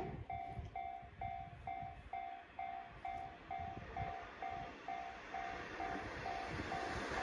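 Railway level-crossing alarm sounding its repeated electronic ding, about two and a half strikes a second. Under it, the rushing noise of an approaching electric train grows steadily louder over the last couple of seconds.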